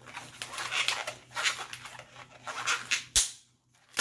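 Hands twisting and rubbing a white latex modelling balloon while making pinch twists: a run of scratchy rubbing swells, then a sharp snap a little after three seconds, after which it goes quiet.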